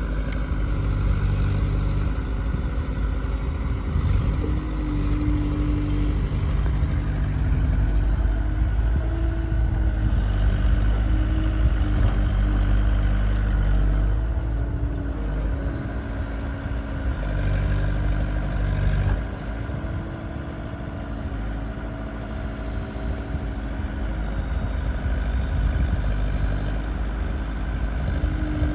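Diesel engine of a JCB backhoe loader running as it loads sand, its note rising under hydraulic load and settling back several times, and dropping noticeably about two-thirds of the way through.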